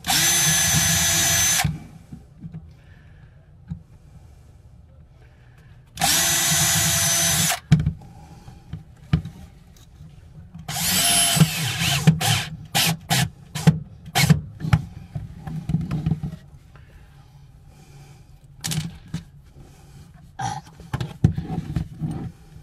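Cordless drill/driver fastening the brackets that anchor a galley cabinet to the van floor. Two steady runs of about a second and a half each, one at the start and one about six seconds in, then another run near eleven seconds followed by a string of short trigger bursts. Scattered clicks and tool handling come after.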